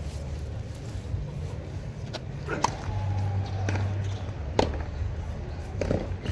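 Tennis ball popping off the rackets and the hard court during a rally: about five sharp pops, roughly a second apart, starting about two seconds in, over a low crowd rumble.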